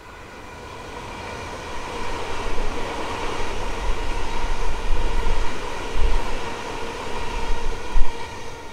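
Melbourne Metro electric suburban train passing close by. It grows louder over the first two seconds, then holds as a rumble of wheels on rails with a steady whine, and there is one sharp thump near the end before the sound cuts off suddenly.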